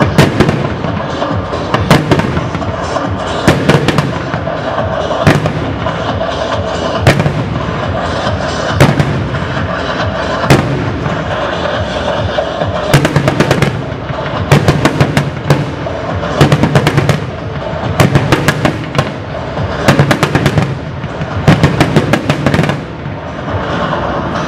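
Fireworks display shots, fans of comets fired in a steady series of sharp reports about every second and a half to two seconds. From about halfway in they come in quick clusters of several reports at a time. Music plays underneath.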